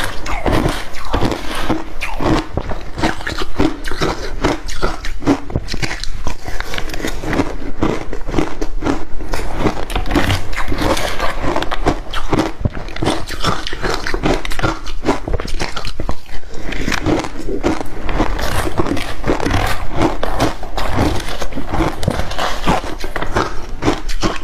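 Close-miked crunching and chewing of crushed ice with passion fruit: a rapid, continuous stream of crisp crunches.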